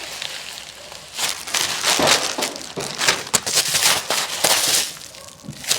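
Plastic packaging crinkling and crackling in the hands as a parcel is handled and opened, in irregular bursts of sharp rustles.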